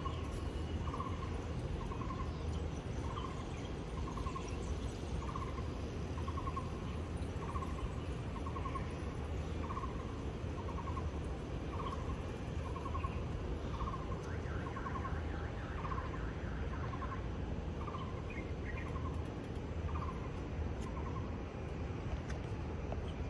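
A bird calling a short note over and over, about once a second, over a steady low background hum. About midway a second, higher and quicker chirping joins in briefly.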